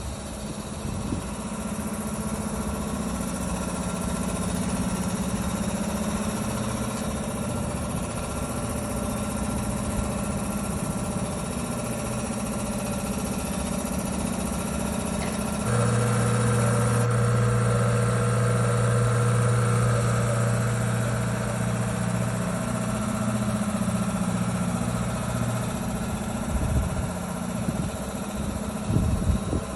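An air-conditioning unit running with a steady mechanical hum. About halfway through, a stronger, deeper hum with a higher whine sets in, and it eases off again near the end.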